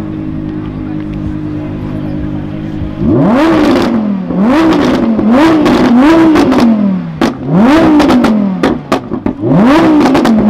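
Audi R8's V10 idling, then revved hard about six times in quick succession from about three seconds in, each rev climbing sharply and dropping back. Exhaust crackles and pops sound as the revs fall.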